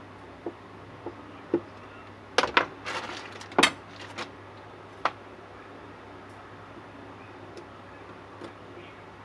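Scattered sharp knocks and clicks of tools and fittings being handled during installation work. A cluster of louder knocks and clatter comes about two and a half to four seconds in, over a steady low hum.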